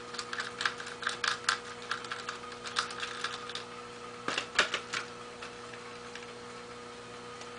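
Light, irregular clicks and rattles of a rifle bipod's metal parts being worked by hand as it is taken off the rifle stock, with two sharper clicks about four and a half seconds in. A faint steady hum runs underneath, and the clicking dies away for the last couple of seconds.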